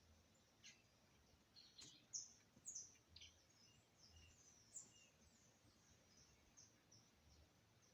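Faint, scattered short high chirps of birds, the loudest bunched about two to three seconds in, over faint outdoor background noise.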